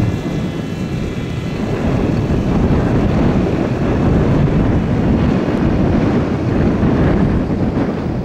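Strong wind buffeting the microphone with a loud, low rumble. A faint high whine from the ZOHD Orbit flying wing's electric motor fades out in the first couple of seconds.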